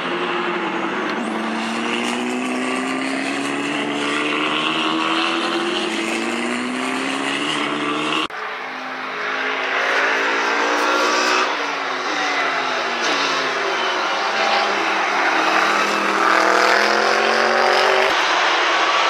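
Racing car engines at speed: a Formula 4 single-seater accelerating with its note climbing through the gears, then, after an abrupt cut about 8 seconds in, GT and prototype race cars passing, their engine notes falling and then climbing again.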